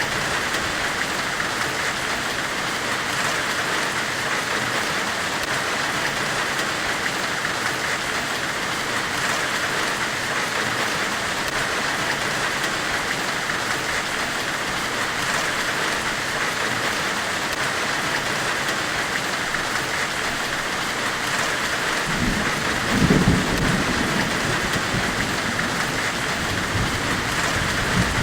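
Steady hiss, billed as a forge's hiss during forge welding, even and unbroken throughout. A low rumble swells about 22 seconds in, and briefly again near the end.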